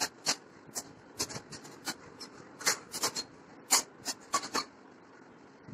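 Pencil lead scratching on drawing paper in a quick run of short, irregular strokes, about fifteen of them, stopping a little over a second before the end.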